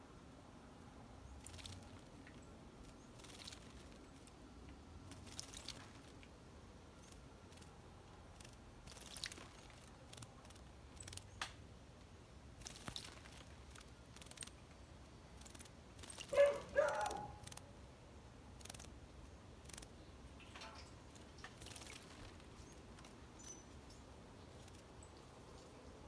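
Bananaquit bathing in a shallow metal dish of water: scattered short splashes and flicks, with a louder burst of splashing about sixteen seconds in.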